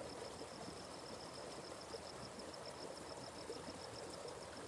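A forest stream burbling softly, with an insect's steady, rapidly pulsing high-pitched trill above it.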